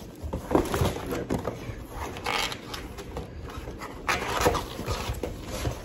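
Cardboard Little Caesars pizza box being handled on a wooden table: the lid flexed and folded and the box shifted, giving a run of rustles, scrapes and knocks with louder bursts about two and four seconds in.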